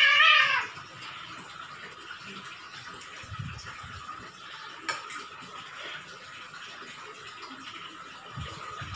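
A cat meows once, a loud wavering cry that ends about half a second in. Afterwards there are only faint eating noises over a steady background hiss: a spoon on a plate, a sharp click and a couple of soft knocks.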